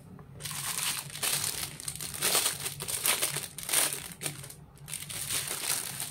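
Clear plastic packaging bag crinkling and rustling in a run of crackly bursts as a silicone phone case is pulled out of it. It starts about half a second in and dies away near the end.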